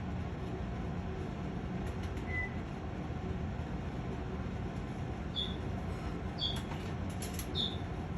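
A few short, high-pitched peeps from an Amazon parrot, the first about two seconds in and three more in the last three seconds, over a steady low rumble, with faint clicks near the end.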